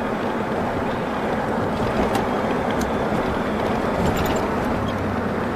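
Steady engine and road noise inside a moving vehicle's cabin.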